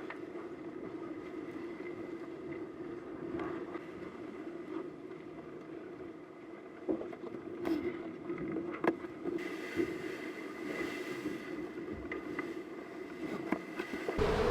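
Steady hum of an IMOCA 60 racing yacht sailing at speed, heard on board, with a few sharp knocks and clicks from the boat about halfway through.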